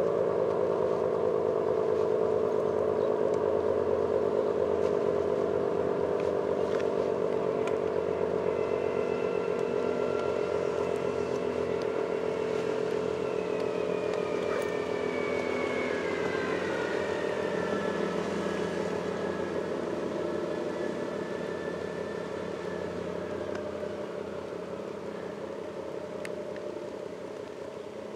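ACA Allertor 125 rotating electromechanical siren, with 10- and 12-port rotors, sounding its two-tone chord as the horn turns. It begins to wind down: the pitch sags slowly and the sound fades steadily.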